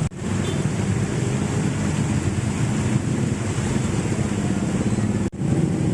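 Floodwater from an overflowing canal gushing through gaps in a fence and splashing onto a flooded road: a steady, loud rushing, with a low engine hum underneath. The sound breaks off briefly about five seconds in.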